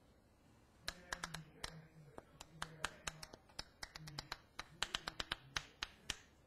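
A quick, irregular run of sharp clicks and taps, starting about a second in and stopping shortly before the end.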